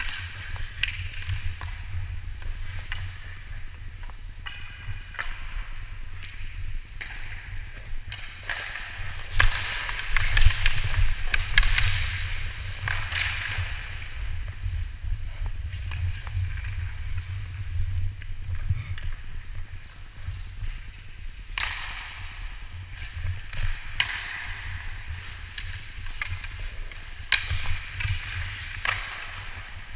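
Ice hockey skate blades scraping and carving on the ice in swelling strides, with sharp clacks of sticks and puck here and there, over a constant low rumble. The skating is loudest about ten to thirteen seconds in.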